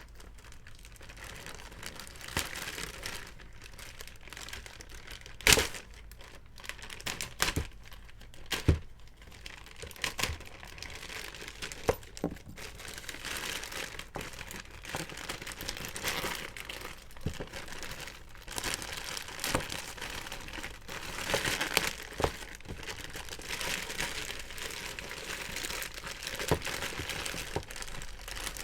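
Packaging crinkling and rustling as it is handled, with scattered sharp clicks or knocks, two of them louder.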